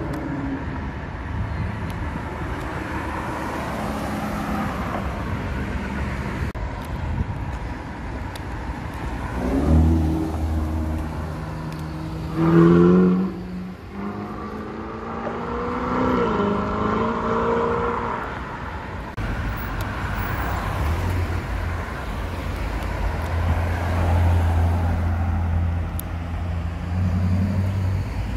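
Sports-car engines accelerating past, several separate passes with the engine pitch rising as they rev up. The loudest pass comes about halfway through, over steady traffic noise.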